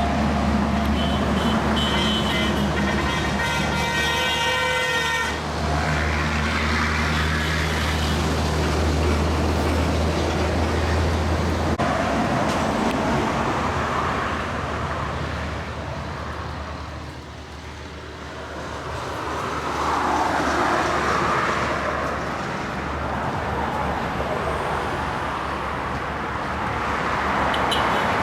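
Road traffic: motor vehicles passing in swells that rise and fall, over a steady low engine hum that stops about twelve seconds in. A horn-like toot sounds a few seconds in.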